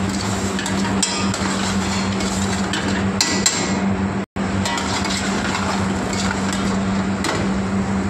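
Steel ladle scraping and knocking against a steel pan while stirring thick paneer gravy, with scattered sharp metal clinks. Underneath is a steady background roar with a constant low hum. The sound cuts out for an instant near the middle.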